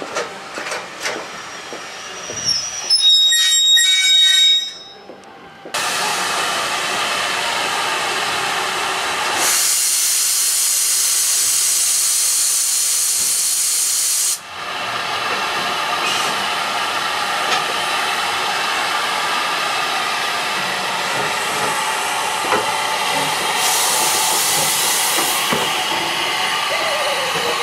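Steam hissing steadily from Southern Railway U class 2-6-0 locomotive No. 1638 standing in steam, growing louder twice for several seconds. Before it, near the start, a short loud shrill whistle.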